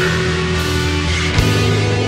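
Funeral doom metal: slow, sustained guitar and bass chords, with a drum hit and a change of chord about one and a half seconds in.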